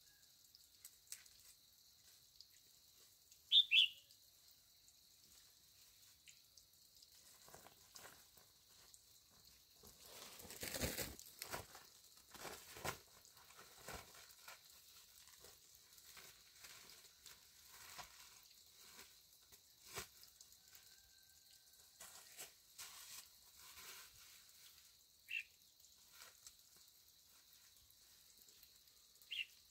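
Faint rustling and crackling of leaves and stems being handled, loudest about ten to thirteen seconds in, with three short high chirps: a double one near four seconds, one near the end and one just before it.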